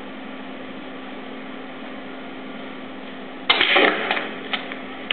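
Snooker shot on the black: a sharp clack about three and a half seconds in, then a short rattle and a few lighter clicks as the balls are struck and the black is potted. Underneath is the steady hiss and mains hum of an old taped TV broadcast.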